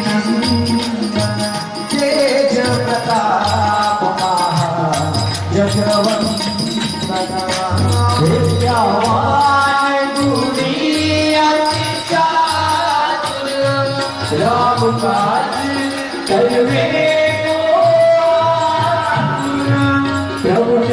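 A group of voices singing a Hindu devotional chant together, accompanied by harmonium, a steady drum beat and jingling hand percussion.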